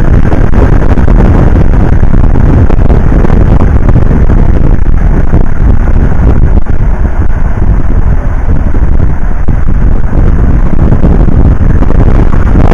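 Loud, steady rumble of wind buffeting the microphone, mixed with the road noise of a moving vehicle.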